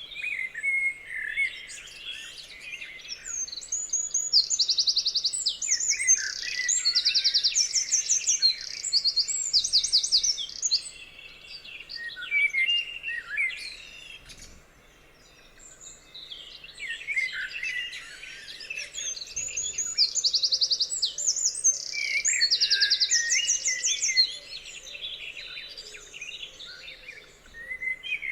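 Several songbirds singing at once, a dense mix of chirps, whistles and fast high trills. The song thins to a brief lull about halfway through, then builds again.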